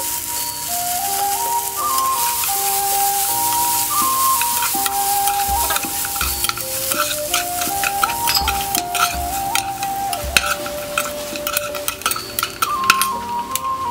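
Chicken pieces sizzling in hot oil in a wok while a spatula stirs and scrapes them, with many sharp clacks against the pan from about five seconds in. Background music with a simple melody plays alongside.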